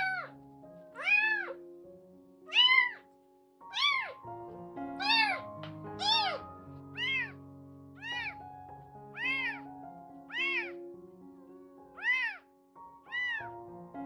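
A two-week-old kitten mewing over and over, about a dozen high, arching mews roughly one a second, while being weighed and handled. Soft background music plays underneath.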